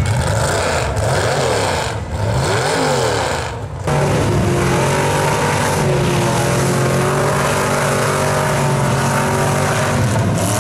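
For about the first four seconds, a sound that swoops up and down in pitch over and over. From about four seconds in, a Chevrolet S-10 mega truck's rear-mounted engine is heard running at steady, high revs as it drives through the mud.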